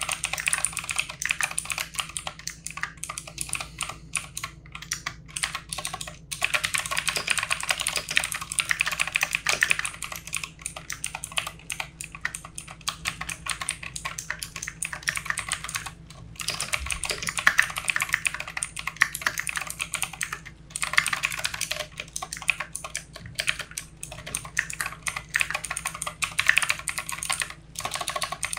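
Fast typing on a mechanical computer keyboard: a dense run of key clicks with a few short pauses.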